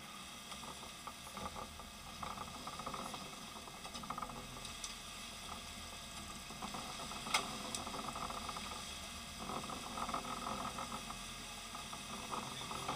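Steady hiss of a sportfishing boat under way, its wake churning white astern, with a faint engine hum underneath. A single sharp knock about seven seconds in.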